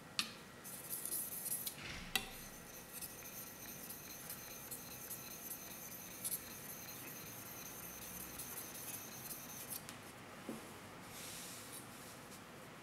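Steel knife blade scraping back and forth in quick strokes on a wet Japanese natural whetstone (Okudo suita). It opens with two sharp clicks, and the strokes stop about ten seconds in.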